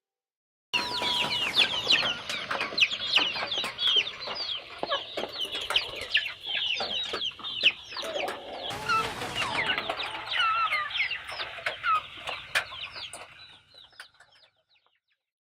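A flock of chickens clucking and chirping, many short high calls overlapping with scattered clicks. It starts abruptly about a second in and fades out near the end.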